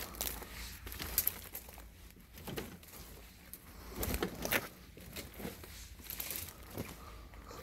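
Rustling and crackling of dry brambles and weeds being brushed and trodden through on foot, with irregular crunches that are louder about a second in and again about four seconds in.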